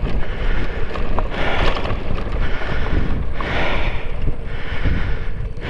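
Wind buffeting the microphone with a loud, uneven rumble, and heavy breathing coming in waves about every two seconds.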